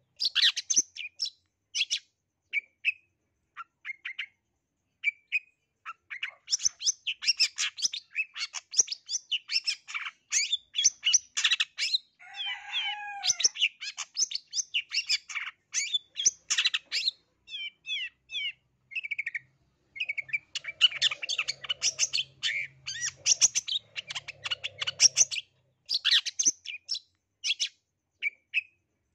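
Long-tailed shrike (cendet, the black-headed 'blangkon' form) singing a fast, varied song of high chirps and trills stuffed with mimicked calls of other birds, in dense runs broken by sparser spells. About twelve seconds in comes a lower, wavering call.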